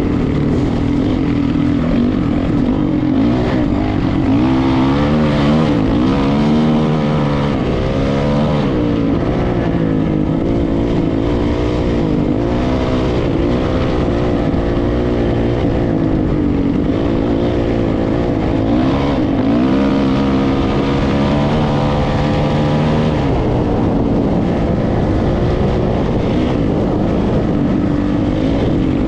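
A vehicle engine running steadily, its pitch rising and falling several times as it speeds up and eases off, over a constant rushing noise.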